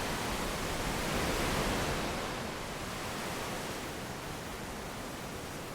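Steady rushing noise of strong wind and ocean surf, a little louder for the first two seconds, then easing off.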